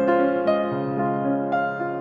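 Background music: a gentle piano melody with notes struck about twice a second.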